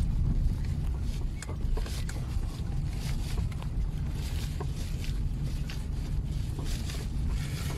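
Car driving slowly along a rough, patched country lane, heard from inside the cabin: a steady low rumble of engine and tyres, with scattered small knocks and rattles from the bumpy surface.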